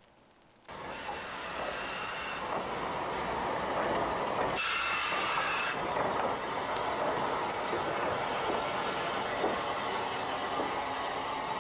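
Train running along the track: a steady rumble and rattle that cuts in just under a second in, with a brief brighter rushing stretch about halfway through.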